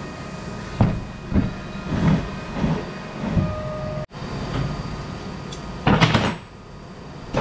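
A welded steel pot knocking and scraping as it is turned over and set down on a wooden workbench, several separate knocks. Near the end, a louder clatter of flat steel bars being picked up and handled.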